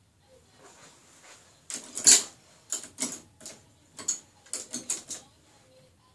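An irregular run of about a dozen sharp knocks and scrapes, close to the microphone, starting a couple of seconds in. The loudest is a heavy knock about two seconds in.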